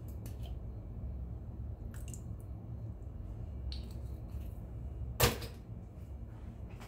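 Low steady room hum with a few light clicks and one sharp knock about five seconds in.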